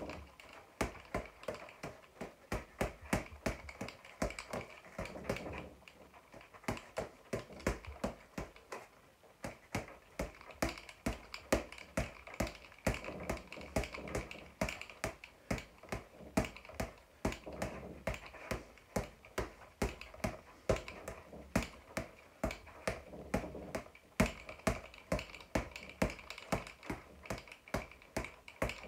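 Boxing gloves hitting a floor-to-ceiling ball in quick combinations: a run of sharp smacks about two to three a second, broken by brief pauses.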